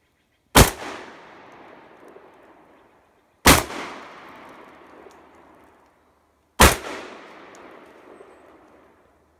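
Three 12-gauge shotgun shots, about three seconds apart, each trailing off in a long echo.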